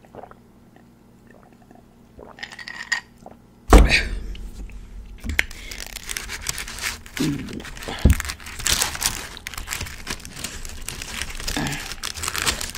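A loud thud about four seconds in, then a long run of crinkling and tearing as hands pull apart a garlic naan on its paper or foil wrapping.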